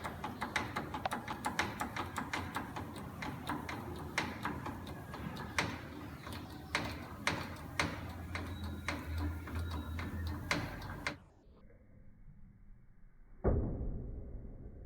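Repeated sharp clicks and knocks as the front of a 2007 Toyota 4Runner is jacked up. Then, near the end, a single heavy metallic clunk as the front lower control arm bushing shifts under very large force: the source of the random front-end clunk over speed bumps.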